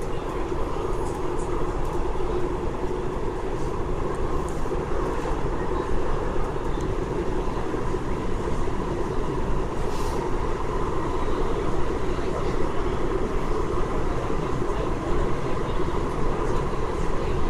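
Cabin noise of a West Rail Line eight-car electric train running between stations: a steady rumble and hum of wheels and traction gear. A single sharp click comes about ten seconds in.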